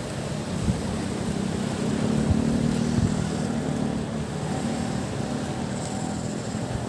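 A motor engine droning low and steady, growing louder around the middle and then easing off, over a constant wash of surf.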